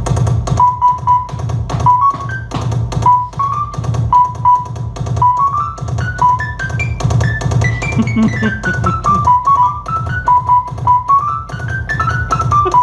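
A programmed beat from a Native Instruments Maschine: quick, regular drum hits over a steady bass, with a line of short keyboard notes that repeats a figure, climbs higher about eight seconds in, then steps back down.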